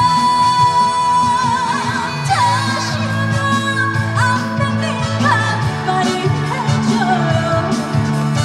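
Live trot song: a female singer holds a long note for the first second and a half, then sings on over loud instrumental backing.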